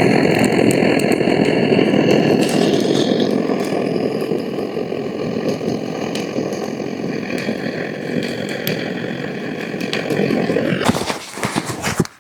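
A steady mechanical running sound with a whine over a rushing noise, which cuts off abruptly near the end, followed by a few clicks.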